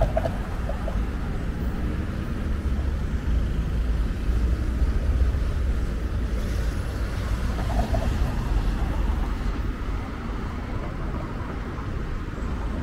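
City street ambience: steady road-traffic noise with a deep low rumble, and a few faint voices now and then.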